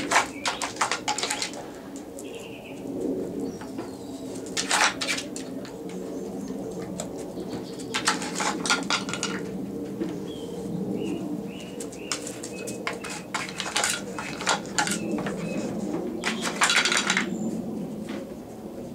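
A dog sniffing and nosing at a wooden sliding puzzle board, with repeated bursts of wooden clicks and knocks as the sliding wooden covers are pushed and clatter onto the paving.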